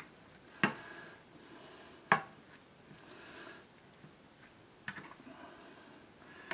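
Spatula stirring ground beef in barbecue sauce around a frying pan, with faint scraping and three sharp knocks of the spatula against the pan, the loudest about two seconds in.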